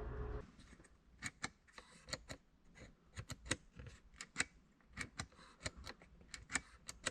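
Sharp clicks in an irregular string, about twenty over six seconds, from newly installed push-button dash switches in an FJ Cruiser's center console being pressed on and off. A steady hum stops about half a second in.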